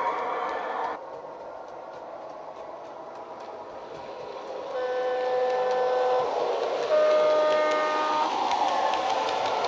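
Sound decoder of a Bachmann Class 416 (2EPB) electric multiple unit model, playing a Legomanbiffo sound file: the unit's running sound, then a two-tone horn about five seconds in, a lower note held for over a second followed by a higher note.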